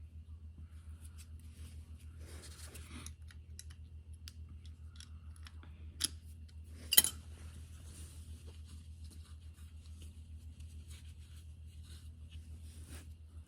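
Small metal tools clinking and scraping on an oil burner's electrode assembly while the electrodes are being adjusted, with two sharp metallic clicks about six and seven seconds in, the second the loudest, over a steady low hum.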